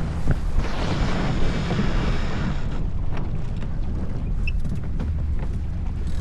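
Wind buffeting the microphone aboard a J/24 sailboat under way, a steady low rumble. A louder rushing hiss swells for about two seconds near the start.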